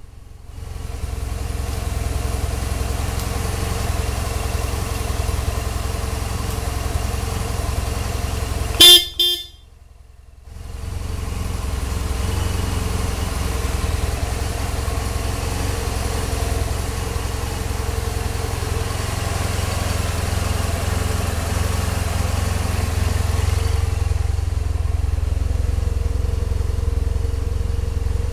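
BMW F800S parallel-twin engine idling steadily. About nine seconds in, the motorcycle's horn sounds once, briefly. The engine sound then drops away for about a second and comes back.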